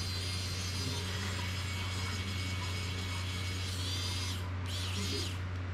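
Small electric precision screwdriver running as it drives screws into a GEPRC Cinelog 35 drone frame: one run of about four seconds, then a short second burst near the end, over a steady low hum.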